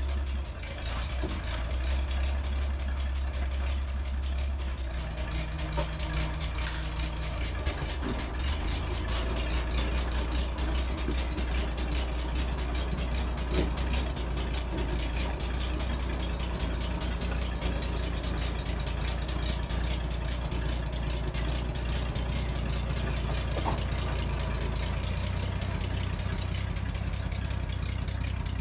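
Tractor engine running steadily, with a fast clatter of small knocks over it.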